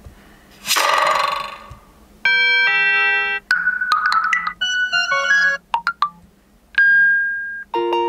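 Huawei P50 Pro preset messaging tones previewed one after another through the phone's speaker: about five or six short chimes and electronic bleeps in quick succession, several cut off abruptly as the next tone is picked.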